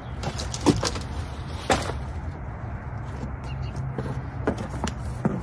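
A few short knocks and clatters of hard objects being handled and set down, the sharpest about a second and two seconds in, over a steady low hum.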